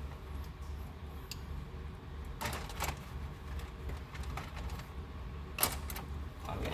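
A few scattered light metallic clicks and taps of hand-tool work on the open cylinder head of a Chrysler 4.7 V8 while a hydraulic lifter is being swapped, over a steady low hum.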